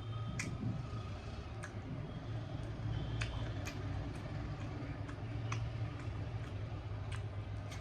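A person eating: sharp mouth clicks and smacks while chewing, irregular and about once a second, over a steady low hum.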